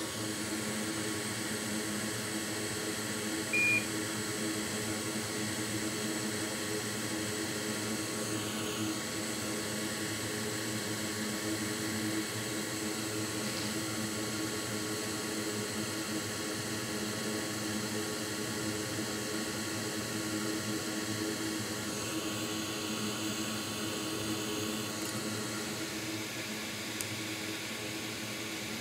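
Steady electric fan whir with several fixed hum tones, and a single short electronic beep about three and a half seconds in.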